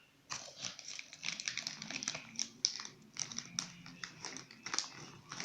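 Crunchy snack chips being chewed: a quick, irregular run of crisp crunches and crackles.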